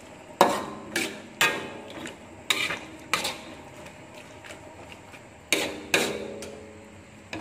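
Metal spatula knocking and scraping against a wok while stirring a wet spice mixture: about seven sharp clanks with short metallic ringing, in a group early on and another pair late.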